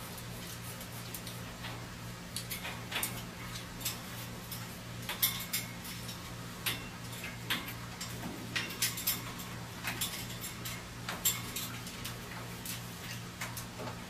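Scattered light clicks and taps, unevenly spaced and a few to the second, over a steady low hum.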